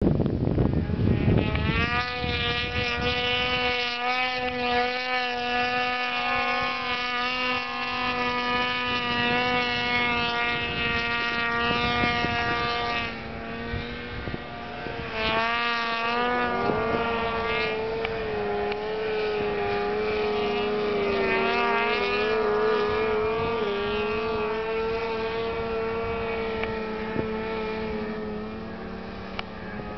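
Snowmobile engine running hard at high, nearly constant revs while climbing. It dips and wavers briefly about halfway through, then pulls steadily again.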